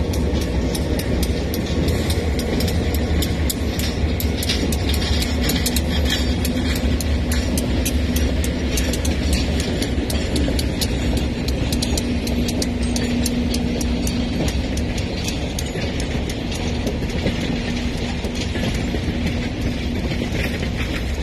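A slow train of cabooses rolling past: steel wheels clicking over the rail joints above a steady low rumble, with a faint steady hum.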